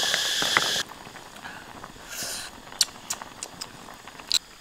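A pot of mussels, clams and duck eggs cooking with a loud steady hiss of steam, cut off suddenly about a second in. After that a wood fire crackles quietly, with scattered sharp pops.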